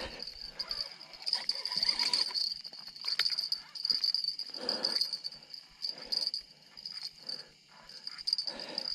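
Spinning reel and rod being worked as a channel catfish on cut bait is brought in, with irregular handling noises and two louder rough bursts, one about halfway and one near the end. A steady high chirring of night insects, crickets, runs behind.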